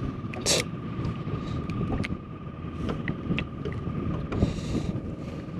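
Fishing boat's electric trolling motor giving a steady high whine, with wind buffeting the microphone. Scattered light clicks and knocks, a short loud scrape or rustle about half a second in, and a brief hiss near the end.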